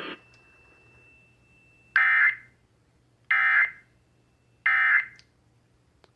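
Three short, shrill digital data bursts of an Emergency Alert System SAME header on NOAA Weather Radio, evenly spaced about a second and a half apart. They signal the start of a new alert, here a tornado warning.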